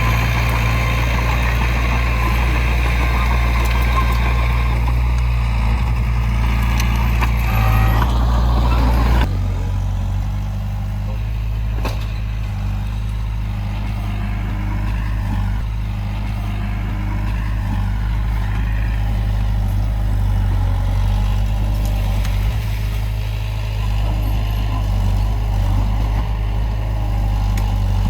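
Diesel engines of heavy earthmoving machinery running steadily. About nine seconds in, the sound changes abruptly to a quieter, lower engine note.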